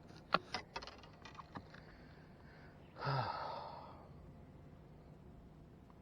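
A few light clicks and knocks, then about three seconds in a person lets out a long, audible sigh that falls in pitch and fades over about a second.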